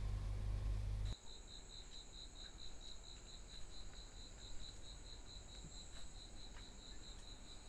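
A low rumble cuts off abruptly about a second in. After it, an insect chirps in a fast, even pulse of about five chirps a second over a thin, steady high buzz.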